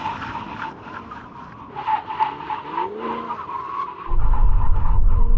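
Tyres squealing as heavy SUVs brake hard from 100 mph in an emergency stop, with a steady high squeal. A loud low rumble joins about four seconds in.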